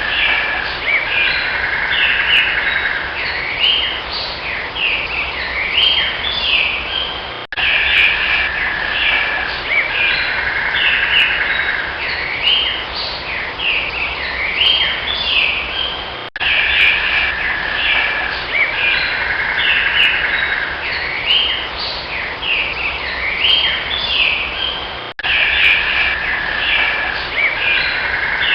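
Birds chirping and trilling over steady background noise. The same recording of about nine seconds plays in a loop, restarting with a sudden break three times.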